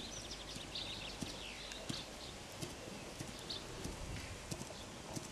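Faint outdoor quiet with birds chirping, and a series of soft, short knocks at irregular intervals of about half a second to a second.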